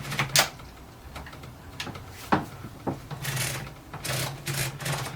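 Line-spacing mechanism of a 1930 Erika 5 portable typewriter worked by hand as the platen is advanced: a few sharp clicks, then two short rasping ratchet strokes.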